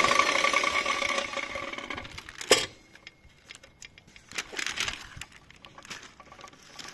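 Electric wall chaser's motor coasting down after being switched off, its running tone fading away over about two seconds. Then a sharp knock, followed by light clicks and handling noises.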